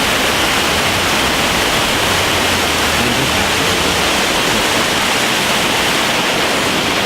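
Amicalola Falls rushing, a steady loud roar of falling water.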